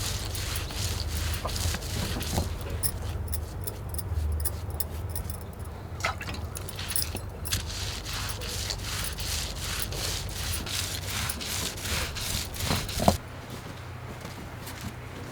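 A busy run of light clicks, taps and scrapes, as of things being handled, over a steady low rumble that cuts off about thirteen seconds in, just after a sharp knock.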